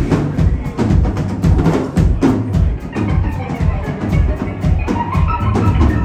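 Live band playing: a busy drum kit with rapid hits over a steady bass guitar line, with electric guitar and keyboards; a higher melodic line comes in about five seconds in.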